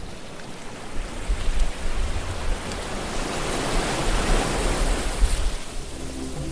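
Sea surf washing: a steady hiss of moving water that swells about four seconds in and eases off near the end.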